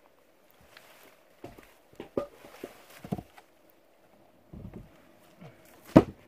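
Knocks, scuffs and leaf rustling as a chunk of rotten wood is pulled from a hollow and set down on a rock, with a sharp knock near the end. A faint steady hum runs underneath.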